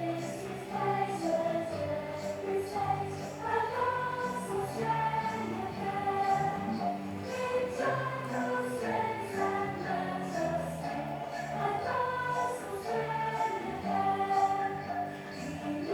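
A choir singing with musical accompaniment, holding long notes that move smoothly from one pitch to the next.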